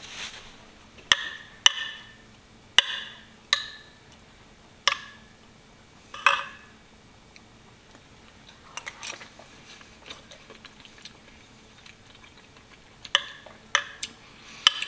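Metal spoon stirring chili in a ceramic bowl, clinking against the bowl with a brief ring, about seven times in the first seven seconds, then a few soft taps and three more clinks near the end.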